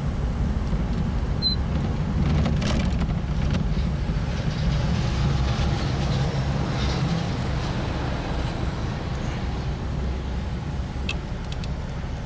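Cabin sound of a 1934 Packard Eight sedan cruising at about 40 mph: a steady low rumble of road noise and its smooth, quiet 320 cubic inch straight-eight engine. A few faint clicks sound about three seconds in and again near the end.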